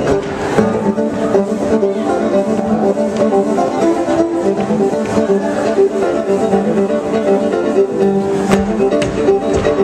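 Live fiddle and guitar playing a funky contra dance tune.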